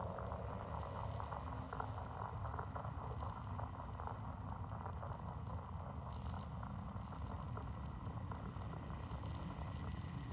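A steady dense crackling rattle over a low hum, with no speech, and a few brief bursts of hiss.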